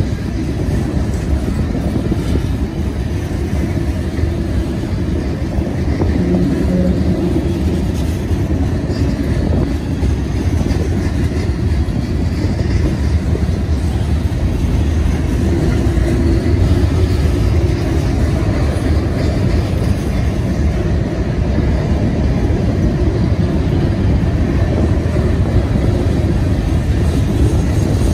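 Freight cars of a mixed manifest train rolling past: a loud, steady low noise of steel wheels running on the rails.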